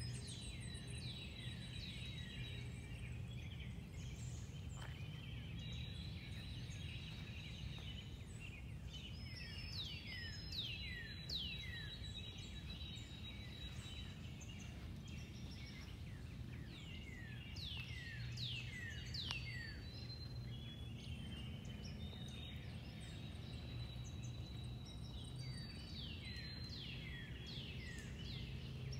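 Songbirds singing outdoors: runs of quick downward-slurred chirps every several seconds, mixed with long high thin whistled notes, over a steady low background hum.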